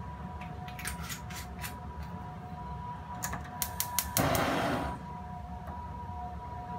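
Gas stove burner being adjusted at its knob: two runs of sharp clicks, then a short rush of gas flame about four seconds in, over a steady low burner rumble.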